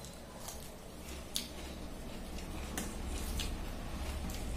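Eating by hand: a few sharp, wet clicks and smacks from chewing a mouthful of rice and fish and from fingers working rice on a steel plate, over a low steady hum.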